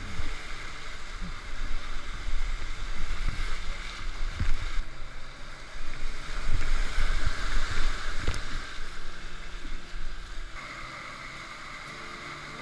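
Shallow river water rushing and splashing around a kayak, with wind rumbling on the microphone and scattered low knocks.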